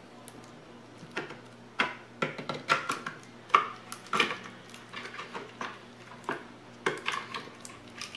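Irregular metallic clicks and clinks from the metal barrel band of an FN 49 rifle being worked and slid along its wooden fore-end during disassembly. They begin about a second in and come in uneven clusters.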